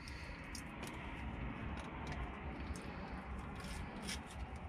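Faint light clicks and rustles of food packaging being handled inside a parked car, over a steady low rumble.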